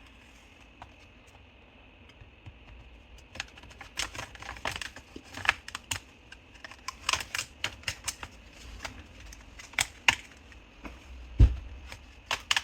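Bottom cover of an ASUS X1603ZA laptop being pried off, its plastic clips snapping loose in a string of irregular sharp clicks, with a dull thump near the end.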